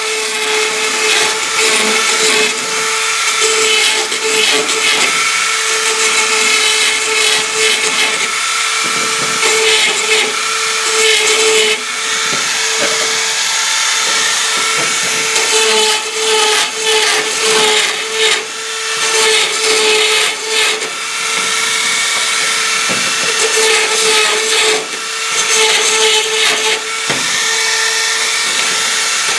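Dremel rotary tool running at high speed, enlarging the screw holes in a shed door hinge: a steady high whine over a grinding hiss, easing off briefly several times as the bit is lifted and reapplied.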